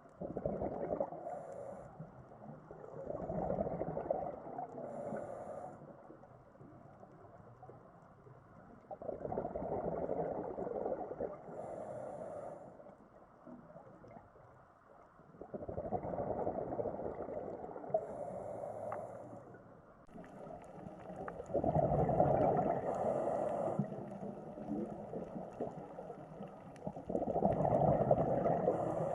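Scuba diver breathing through a regulator underwater: a breath drawn through the regulator, then a rush of exhaled bubbles, repeating about every six seconds.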